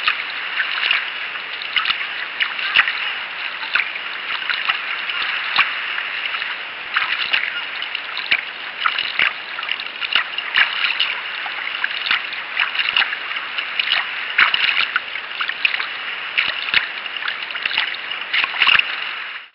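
Water splashing and rushing along the hull of a sea kayak under way, close to the deck, with a steady wash and many short, sharp splashes at irregular intervals.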